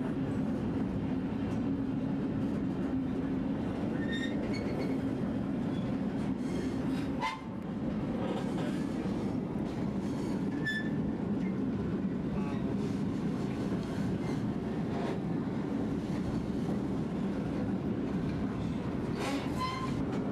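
White Pass & Yukon Route narrow-gauge passenger train rolling along the mountain grade, heard from aboard: a steady rumble of the cars with scattered wheel clicks and a few brief high squeals from the wheels on the curves. The rumble dips briefly about seven seconds in.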